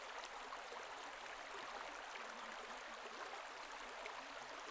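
Faint, steady rush of flowing water.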